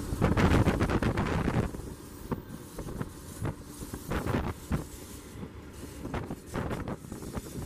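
Wind buffeting the microphone of a camera moving alongside a freight train, over the low rumble of the train's diesel locomotives. The buffeting is heaviest for the first second and a half or so, then eases.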